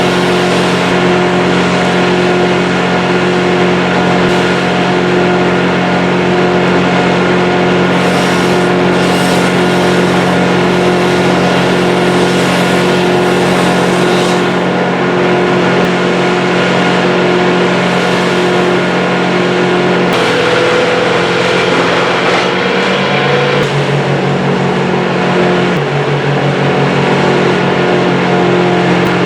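A large engine running steadily at high speed; about twenty seconds in its pitch drops and wavers for several seconds, then settles back to the steady note.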